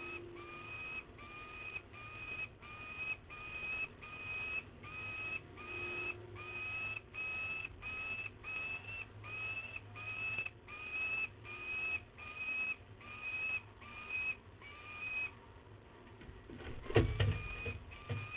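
Young peregrine falcon calling over and over: a drawn-out note with a rising start, about one and a half a second. The calling breaks off for a moment, then a loud burst of wing-flapping comes a little before the end, and the calls start again.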